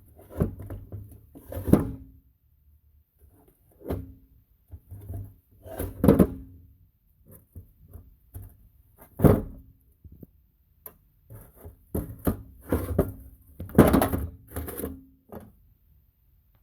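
Metal transfer-case parts and tools being handled during a teardown: a string of irregular clunks and knocks, several of them followed by a brief metallic ring.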